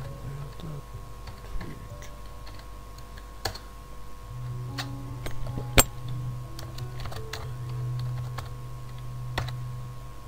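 Computer keyboard typing: scattered key clicks, with one sharper click about halfway through. A steady low hum sets in about four seconds in.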